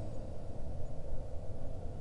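Deep, steady low rumble of a sound-designed sleeping dragon's breathing and snoring, in the lull after a hissing breath has just died away.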